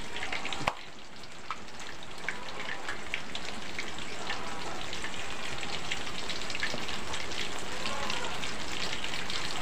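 Battered banana pieces frying in hot oil in an aluminium wok: a steady crackling sizzle that dips briefly about a second in, then slowly grows louder.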